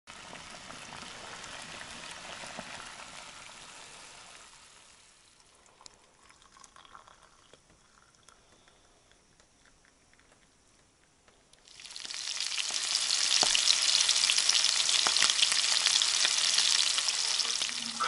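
Food sizzling in a hot frying pan. A crackling sizzle fades away over the first few seconds, leaving a quiet stretch with a few small clicks, then a louder, steady sizzle starts about twelve seconds in.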